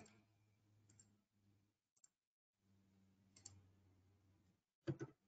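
Near silence with faint computer mouse clicks spaced about a second apart and a couple of louder clicks near the end, over a faint steady hum.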